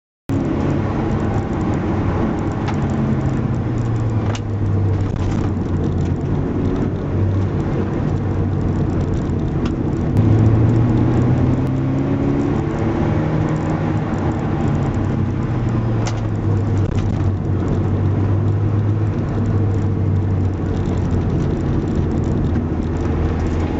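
Car engine running, its low, steady pitch rising about ten seconds in and easing back again, with a few sharp clicks. It is recorded to capture an abnormal noise whose source is not identified.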